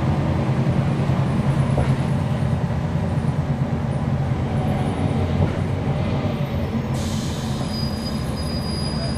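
Inside a NABI 40-foot transit bus under way: its Cummins ISL9 inline-six diesel runs steadily under the road and body rumble. A thin, high squeal comes in near the end.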